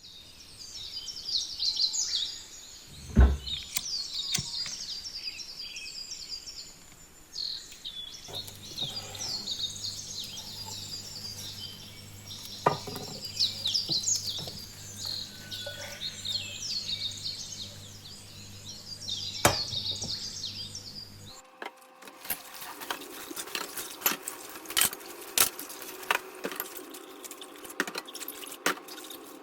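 Many small birds chirping and twittering, with a few sharp thumps, the loudest about three seconds in. About twenty seconds in the birdsong stops abruptly, giving way to a rapid series of clicks and knocks over a steady hum.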